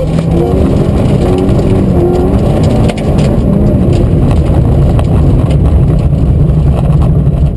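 Peugeot 16-valve rally car's four-cylinder engine at high revs on a gravel stage, with a short dip in level about three seconds in before it pulls hard again. Loose stones tick against the car.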